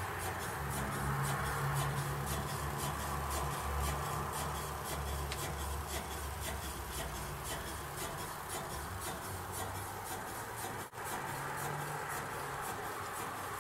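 An original Heinrici hot air (Stirling) engine from about 1910, running on a small methylated-spirit burner. Its moving parts make a steady, rapid, even ticking over a low hum, with a momentary dropout near the end.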